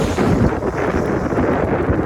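Strong wind blowing across the microphone, loud and uneven.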